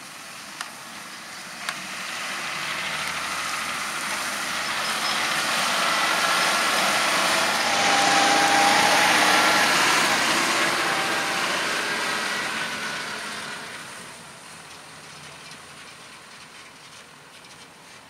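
John Deere 6140R tractor towing a grain trailer drives past across a stubble field, its engine noise swelling to a peak about halfway through and fading away again.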